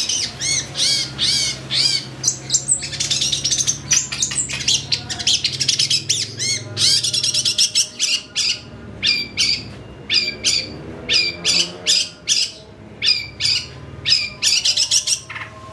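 Long-tailed shrike (cendet) singing a rapid run of short, harsh, scratchy calls and chirps, two or three a second.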